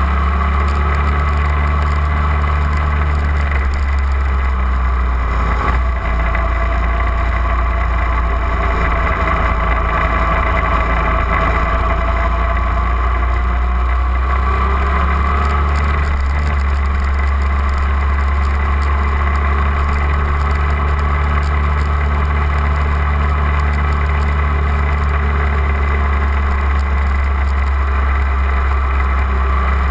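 250 cc sport motorcycle running at steady cruising speed, its engine note drifting slightly up and down, under a heavy low rumble of wind on the fairing-mounted camera.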